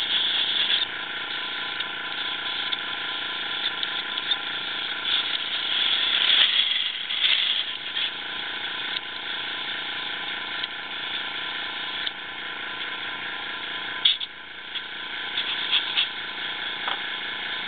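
Airbrush spraying weathering paint: a steady hiss of air with a steady hum underneath, the hum easing back about six seconds in.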